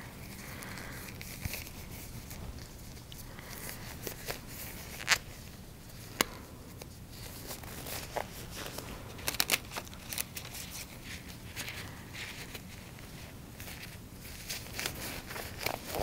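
Sterile gloves being pulled onto the hands: soft rustling and crinkling of the gloves and their paper wrapper, with scattered sharp clicks, the loudest about five and six seconds in and a few more around nine to ten seconds.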